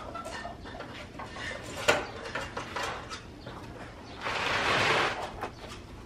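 A trowel scraping wet cement mortar in a metal basin: one rough scrape about a second long past the middle, after a single sharp knock about two seconds in.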